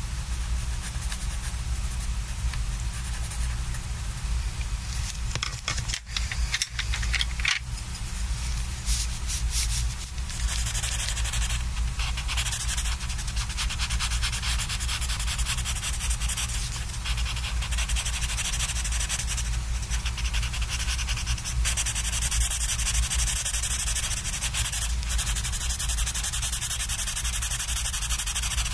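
Colored pencil shading on sketchbook paper: a steady dry scratching of the lead rubbing back and forth, denser from about ten seconds in. A brief pause with a few clicks about six seconds in.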